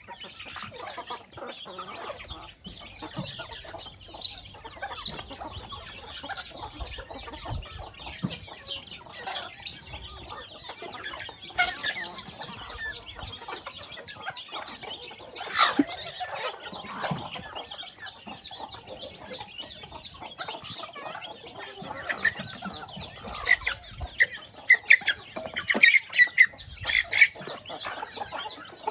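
A flock of chickens foraging: hens clucking over a steady chatter of chicks peeping. The calls grow louder and more frequent in the last few seconds.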